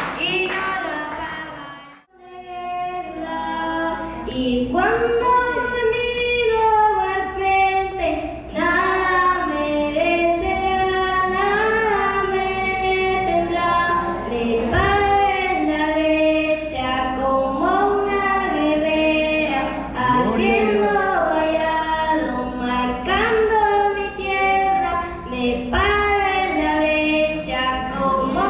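A young girl singing solo through a microphone and loudspeakers, a single voice holding and gliding between notes. About two seconds in the sound drops out briefly before her singing starts.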